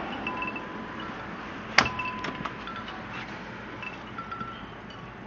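Scattered clear chiming notes at several pitches, like porch wind chimes, over a steady hiss of storm wind. A sharp clank about two seconds in, the loudest sound, rings on briefly.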